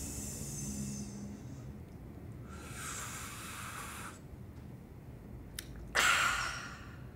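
A man imitating Coca-Cola drink sounds with his mouth. A high hiss fades out in the first second or so, then comes a breathy hiss lasting under two seconds, two small clicks, and a loud, sharp breathy burst about six seconds in.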